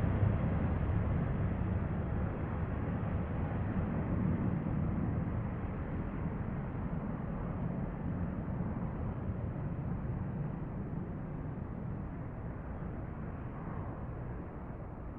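Distant Airbus A350 jet engines at taxi power: a low, steady rumble that slowly fades as the airliner moves away.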